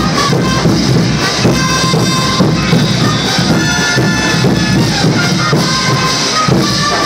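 Diablada brass band playing an old salto dance tune: brass melody over a steady drum beat.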